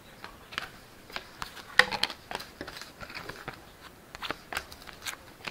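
A stack of chrome-finish baseball cards being flipped through by hand, the cards sliding and snapping against each other in irregular clicks, the sharpest about two seconds in.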